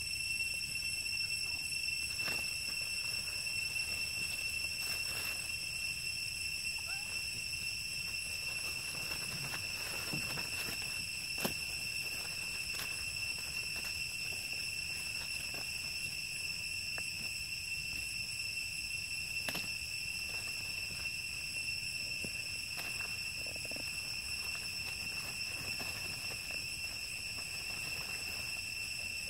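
Steady high-pitched insect drone, unbroken throughout, with scattered soft clicks and rustles from young macaques moving about on dry leaf litter.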